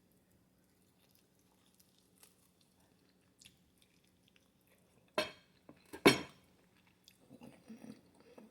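Two loud clatters of tableware being knocked or set down, about a second apart, a little past halfway. Faint eating sounds come before them, and chewing picks up near the end.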